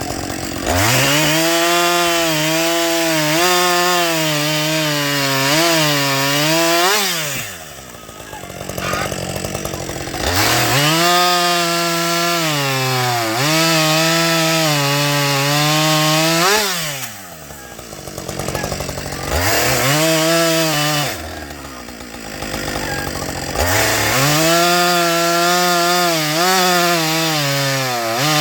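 Husqvarna 555 two-stroke chainsaw held at full throttle in four bursts, the third one short. Its pitch sags and wavers as it bites into wood, and it drops back to idle between bursts.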